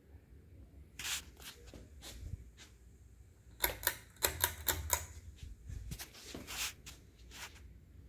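Clicks and rattles of a Hunter Silent Breeze ceiling fan's pull-chain switch being worked by hand, with a quick run of about six sharp clicks in the middle. Under them is the fan's faint low running hum.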